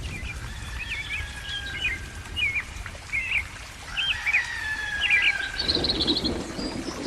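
Birds calling: a run of short, quick chirps, each a few tenths of a second, with a fast high trill about five and a half seconds in. A low rushing noise comes up beneath the calls near the end.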